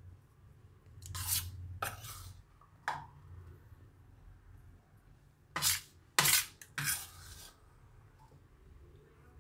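A metal spoon scraping and knocking against dishes as a damp, oily spice mix is spooned into a glass bowl: six short scrapes and clinks, the loudest three close together a little past the middle.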